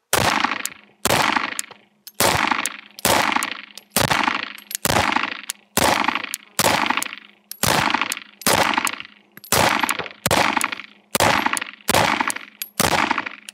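Pistol shots from a compensated 2011-style handgun, about fifteen single shots fired at an even, consistent cadence of roughly one a second, each with a short echo.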